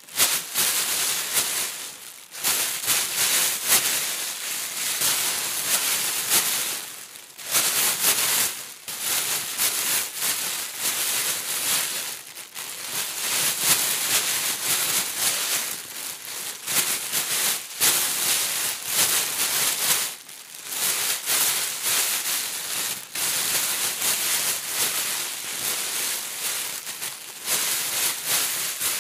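Hands digging and rummaging through a bed of small white polystyrene foam beads: a dense, continuous crackling rustle, broken by a few brief pauses.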